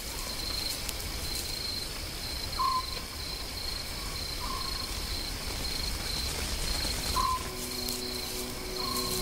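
Night bush ambience: crickets chirping in high, even pulses, with a short single hoot, typical of a small owl, repeating every one to three seconds over a low rumble.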